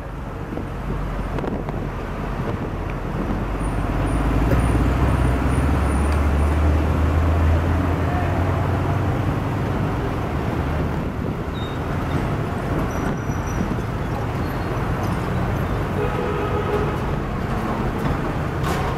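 Busy road traffic of trucks, cars and motorcycles passing close by. A heavy truck's engine rumbles loudest about four to eight seconds in.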